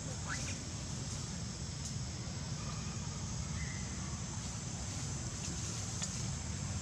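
Steady outdoor background noise with a low rumble, broken by a couple of faint short chirps: a quick rising note near the start and a brief higher note about halfway through.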